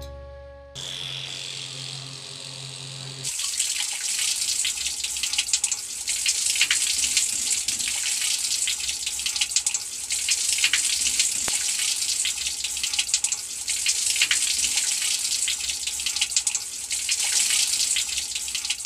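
A small homemade electric water pump hums steadily for a couple of seconds after being switched on. Then water streams down from a small tank outlet and splashes steadily into a shallow plastic tub.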